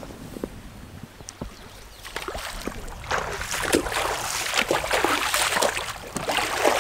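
A hooked trout splashing and thrashing at the water's surface as it is played in on a fly line. The splashing starts about two seconds in and grows into a steady run of quick, irregular splashes.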